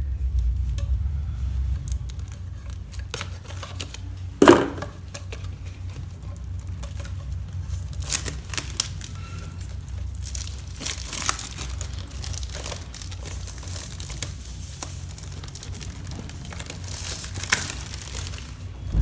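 Thin polythene wrapping being peeled and pulled off by hand: irregular crinkling and crackling, with one sharper rip about four and a half seconds in.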